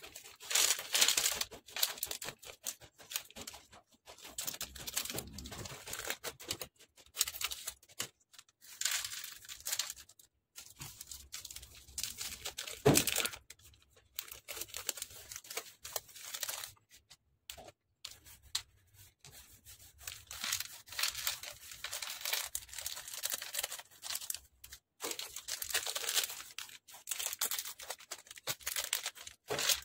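Clear plastic zip bags of small craft mirrors crinkling and tearing as they are handled and opened, in irregular bouts of rustling with short pauses. About halfway through there is one sharp click.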